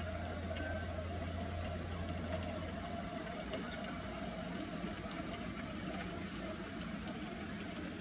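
Steady mechanical hum, with a deeper low drone under it that cuts out about three seconds in.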